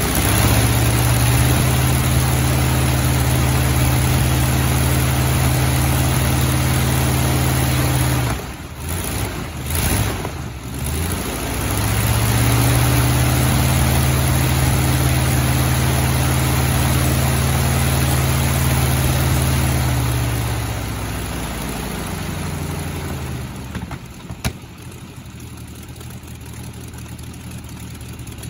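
Jacobs R-755 seven-cylinder four-stroke radial engine running very loud at high revs. The throttle is chopped about eight seconds in, and the revs dip and surge raggedly before it is opened up again. It is then throttled back, the note falling to a lower, quieter run, with one sharp crack near the end.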